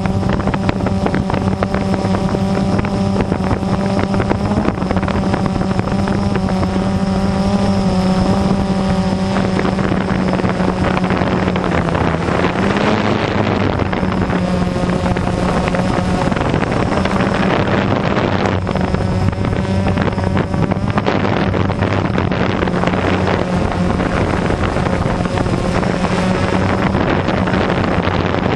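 Quadcopter drone's motors and propellers humming steadily, heard through the drone's own camera, with wind rushing over the microphone. The pitch dips and recovers briefly about twelve seconds in.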